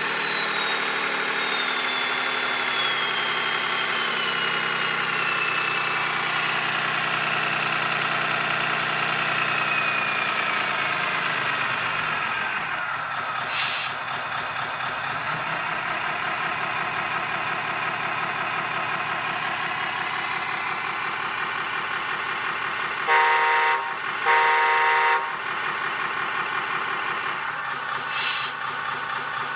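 Electronic sound module in an RC model truck playing a simulated Scania R620 engine through its small speaker. The engine note falls steadily in pitch as it runs down to idle, followed by a brief hiss. It then idles, with two short horn blasts about two-thirds through and another brief hiss near the end.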